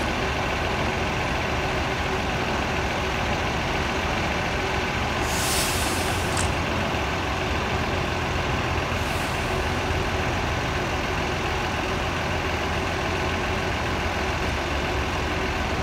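Diesel coach bus engine idling steadily. Two short hisses of air come about five and a half and nine seconds in.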